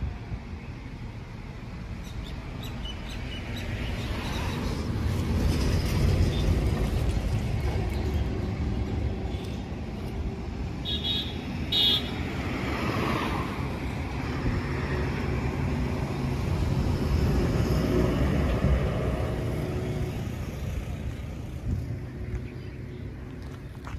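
Road traffic passing on a highway, a low rumble that swells twice as vehicles go by, with two short horn toots about halfway through.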